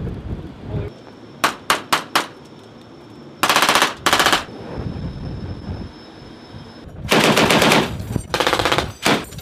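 Gunfire: a quick string of four single shots, then two short bursts of rapid automatic fire from a rifle, then longer bursts from a deck-mounted heavy machine gun in the last couple of seconds.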